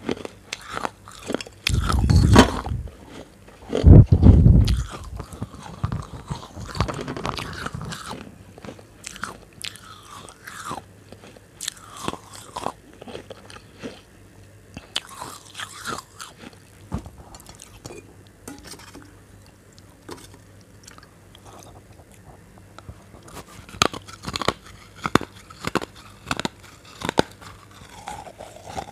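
Baked clay bowl (sakora) being bitten and chewed right at a close-held microphone: sharp cracking crunches of breaking terracotta. Two loud bites come in the first five seconds, then scattered chewing crunches, with a denser run of crunches near the end.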